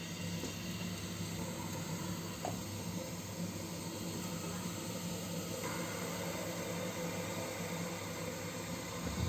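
Home boiler hissing steadily with a low hum from its heat exchanger, the hissing and humming that the owner blames on a fouled heat exchanger and sets out to cure by flushing it with citric acid.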